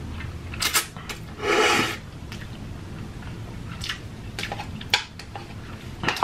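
A person slurping up a mouthful of black ghost pepper instant noodles, with one strong slurp about a second and a half in, then chewing, and a few light clicks of wooden chopsticks against the noodle cup near the end.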